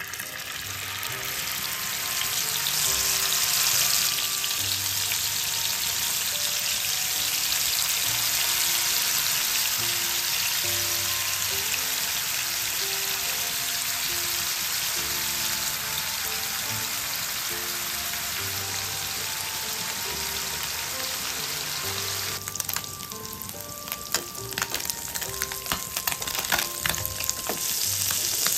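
Marinated anchovies sizzling in hot oil in a frying pan: a loud, steady sizzle that builds as the fish go in. About 22 seconds in, it turns into sharp crackling and popping over a softer sizzle.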